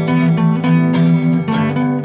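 Acoustic guitar (violão) playing a solo, single notes plucked in a quick-moving melody over ringing low bass notes.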